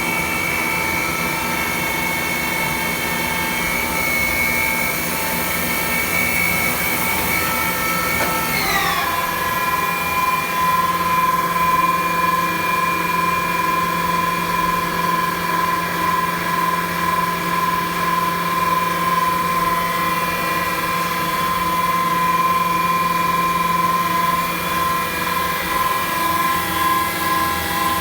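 Star JNC 32 Swiss-type CNC sliding-head lathe running under power: a steady machine whine made of several tones. About nine seconds in the whine slides down in pitch, then holds steady at the lower pitch.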